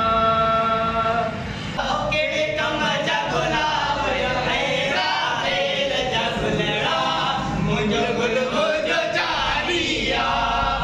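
Male voices singing a song together in chorus, opening on a long held note.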